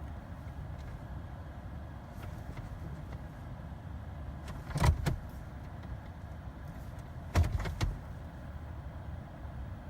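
Sharp mechanical clunks inside a Jeep's cabin: a double clunk about five seconds in and three more about two and a half seconds later, over a low steady rumble.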